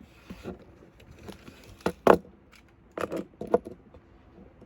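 A toy monster truck clattering: a few sharp plastic knocks, two close together about two seconds in and a quick cluster about a second later.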